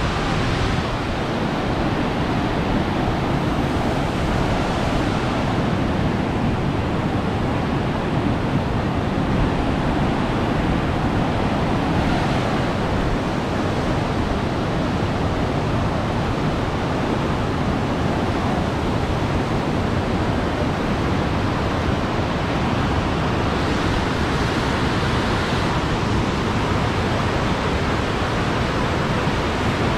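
Whitewater rapids of the Niagara River rushing, a steady loud wash of water noise.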